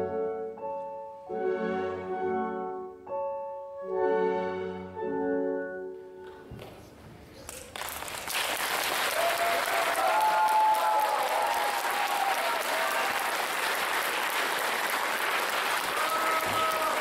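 Slow instrumental music with sustained notes ends about six seconds in. After a brief lull, an audience breaks into steady applause, with a few calls heard over it.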